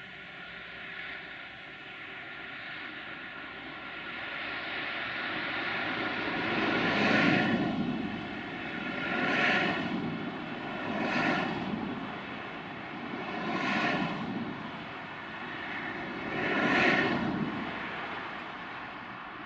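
Sulzer diesel engine of a 060-DA (LDE2100) locomotive running hard under load with a freight train, its noise swelling and fading in about five surges in the second half.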